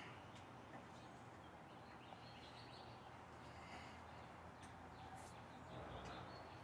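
Near silence: faint room tone with a low hum and a few faint ticks.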